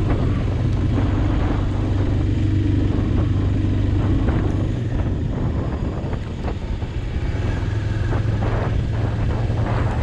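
Motorcycle engine running steadily at road speed, with wind rushing over the microphone; the engine note eases off for a couple of seconds midway, then settles back.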